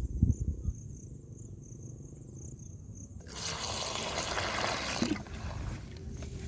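Water pouring from above into a plastic basin heaped with grasshoppers, splashing onto them, starting suddenly about three seconds in and easing off near the end. Before it there is only a low rumble with a few low thumps at the start.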